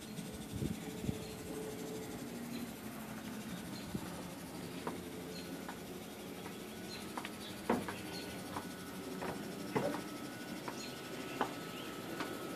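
Evening outdoor ambience: a faint steady background with insects and scattered short bird chirps, a thin steady insect-like tone in the second half, and a few light clicks.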